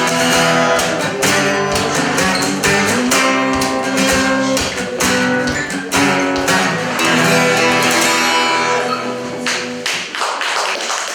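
Acoustic guitar music, chords strummed with sharp strokes about once a second, dying away near the end.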